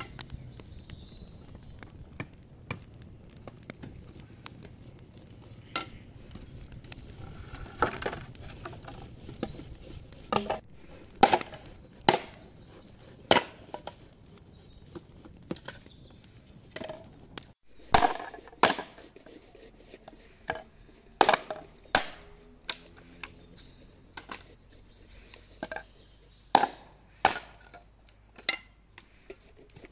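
A small hatchet chopping wood: sharp, irregular strikes, some in quick pairs, over a faint steady background.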